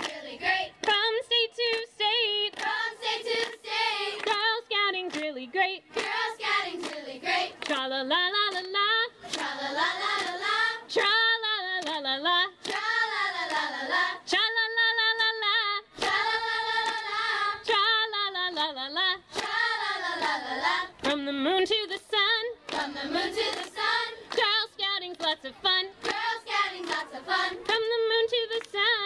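A choir of girls singing together, with hand claps keeping the beat.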